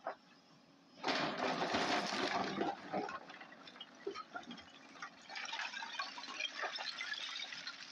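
Hyundai 210 excavator's steel bucket scraping into a pile of broken stone slabs. There is a loud grinding rush of rock about a second in, then a steady crackle of stones clattering and shifting as the bucket digs. The excavator's diesel engine hums low underneath.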